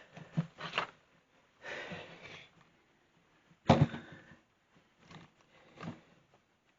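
Handling noises as a camera is moved: a soft rustle, then one sharp knock a little under four seconds in, followed by two fainter knocks.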